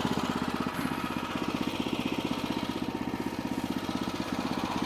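Sawmill engine running steadily with a fast, even firing beat.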